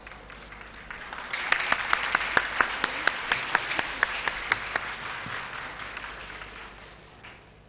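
Audience applauding: the applause swells up about a second in, with sharp single claps standing out over it, then dies away near the end.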